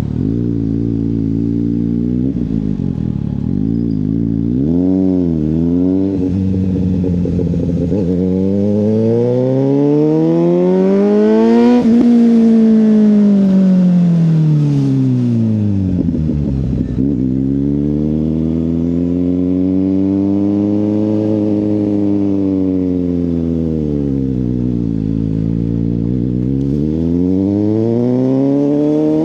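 Suzuki GSX-S750's inline-four engine through a Yoshimura exhaust, giving a few short throttle blips early on and then revving up and easing off in long sweeps, climbing to a peak about twelve seconds in, dropping, rising again and climbing once more near the end.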